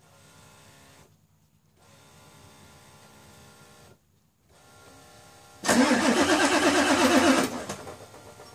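Ford F-350 pickup's engine being cranked on a cold start: the starter turns it over with a fast, even pulsing for about two seconds, and the sound dies away over the next second instead of settling into an idle. Before the crank, a faint steady hum comes on and off three times.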